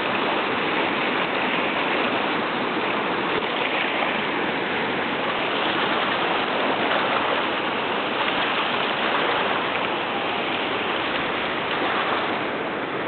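Katun river's fast mountain water rushing past the stony bank: a steady, even rush with no breaks.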